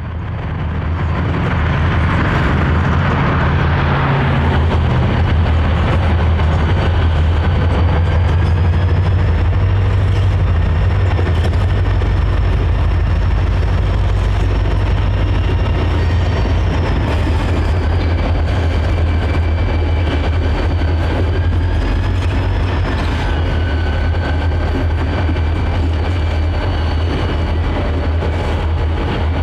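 Diesel freight locomotive running: a loud, steady deep engine drone that builds up over the first couple of seconds, with a thin high whine above it that slides slightly in pitch a few times.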